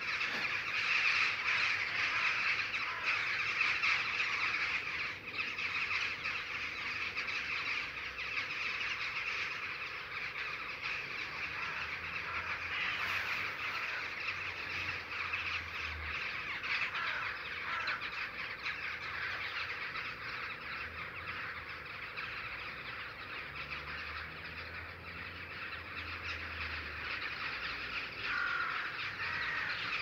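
A large flock of birds calling all at once overhead: a dense, unbroken chatter of many overlapping calls, loudest in the first few seconds.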